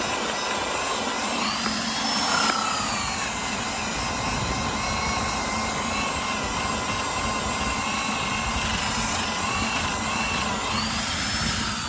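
Adjustable-speed disc grinder running with a paint-clogged sanding disc, grinding antifouling bottom paint off a boat hull. The buildup on the disc heats the paint and rubs it away. Steady whining grind, with the pitch gliding up and back down twice.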